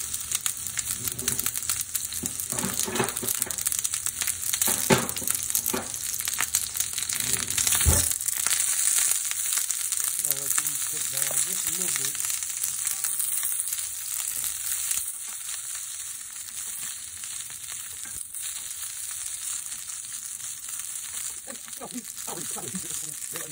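Chopped red onions sizzling in a hot skillet, with short scrapes and clicks of stirring and a sharp knock about eight seconds in. The sizzle turns softer about fifteen seconds in.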